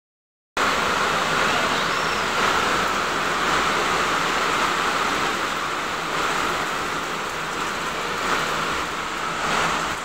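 Heavy typhoon rain pouring down steadily, a dense even hiss that starts about half a second in.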